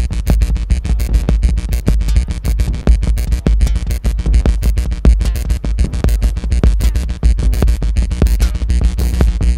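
Background music with a fast, steady beat and heavy bass.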